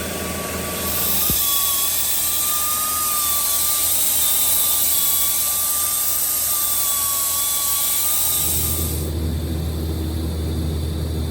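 A power grinder grinding the tips of steel tubing: a steady high whine over a hiss of abrasive on metal. It starts about a second in and stops near the end, when a steady low hum takes over.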